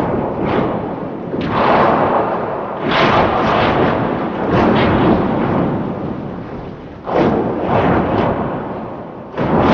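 Monster or alien sound effect: a loud, rough rumbling noise that starts abruptly and surges in repeated swells every second or two.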